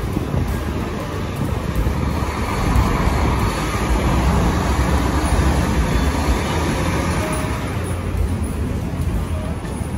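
Street traffic: a continuous rush of vehicles, growing louder from about three seconds in as something passes close by, then easing off again.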